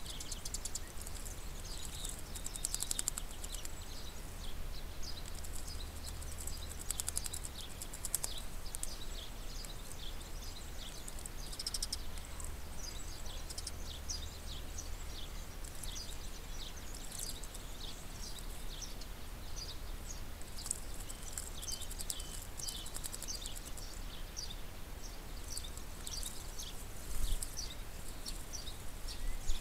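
Small songbirds chirping around a garden fountain: a steady stream of short, quick, falling chirps over a low rumble, with one brief low thump near the end.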